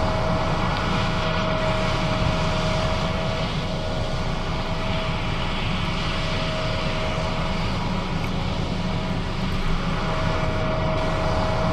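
John Deere S660 combine running steadily while harvesting soybeans: a continuous machine drone with a thin, steady whine over it that drops out briefly now and then.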